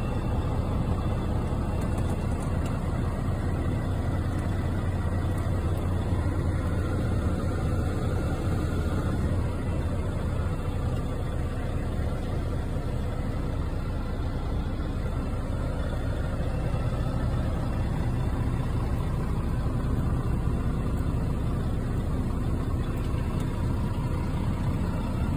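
Volvo truck's diesel engine idling steadily, heard from inside the cab.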